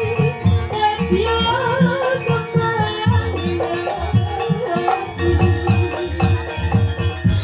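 Javanese gamelan music with a female sinden singing a wavering melody through a microphone, over quick, steady beats of the kendang hand drums and held metallic tones from the ensemble.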